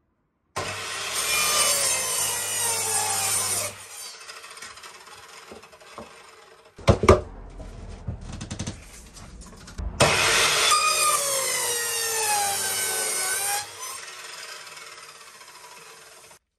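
Evolution mitre saw cutting pallet boards twice: each time the motor runs loud for about three and a half seconds, its pitch dropping as the blade bites the wood, then dies away more quietly as the blade runs down. Between the two cuts comes a sharp knock of wood.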